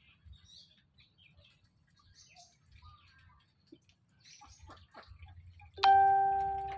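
Faint scattered chirps and small ticks. About six seconds in, a sudden loud bell-like chime rings out and fades over about a second.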